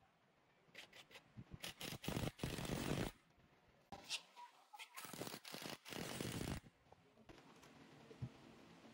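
Cordless impact driver driving wood screws through the old door frame into the new boards, in short bursts about a second in and again around five seconds in.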